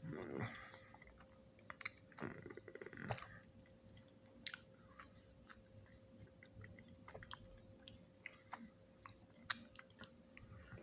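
A person chewing a chocolate chip cookie close to the microphone, with many small scattered clicks of chewing and two louder stretches in the first three seconds. A faint steady tone lies underneath.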